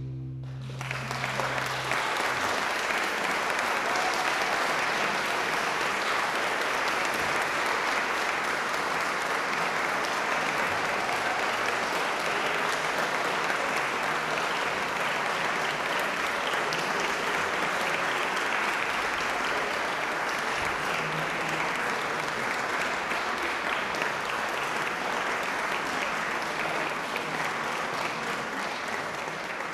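Concert hall audience applauding steadily, starting about a second in as the last low note of the piano trio's final chord dies away, and easing slightly near the end.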